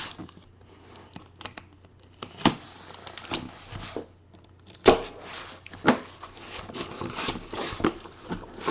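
Packing tape on a cardboard box being cut along the seam and torn open, with scratchy rustling, crinkling tape and a few sharp snaps of cardboard.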